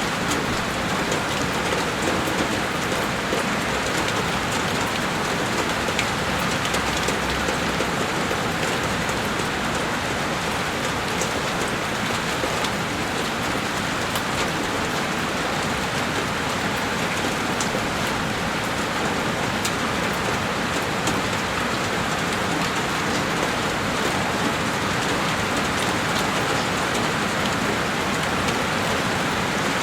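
Heavy rain falling steadily on a window: a dense, even hiss of rain, with scattered drops ticking on the glass.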